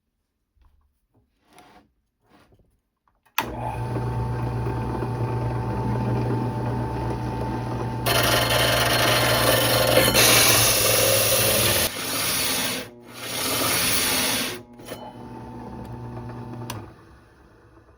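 Drill press motor switched on about three seconds in and running with a steady hum. From about eight seconds a bit grinds loudly against the toolbox's thin sheet metal, breaking off briefly twice, and the motor stops near the end. The bit is struggling and barely cutting, which the owner puts down to the wrong bits, lubricant and speed.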